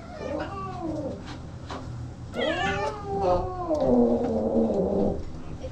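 Young cat meowing while being bathed: a shorter meow near the start, then a long, drawn-out yowl from about halfway through that drops in pitch.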